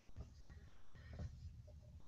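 Faint room tone picked up by a microphone: a low, uneven rumble with a few soft clicks.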